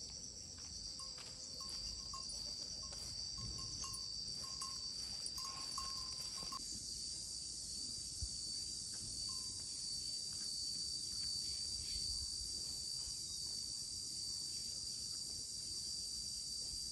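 Steady, high-pitched chorus of insects, which swells and fills out about six seconds in. Over the first six seconds a short note repeats about twice a second beneath it.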